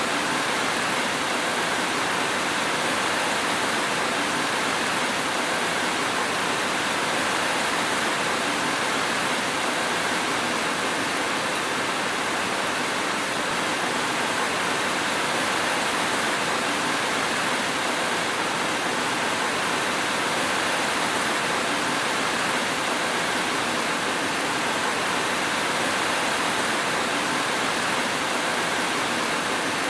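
Steady rain, an even hiss with no thunder or other events.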